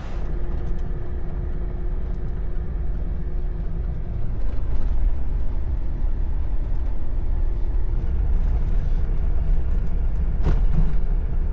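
Jeep Gladiator driving on a dirt road: a steady low rumble of engine and tyres.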